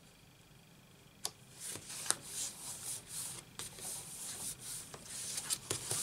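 Cardstock cards being handled and slid over a craft mat: rustling and rubbing of paper with a few sharp taps, starting about a second in.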